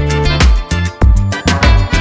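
Background music with a steady beat: an upbeat funk-reggae style track with bass and drums.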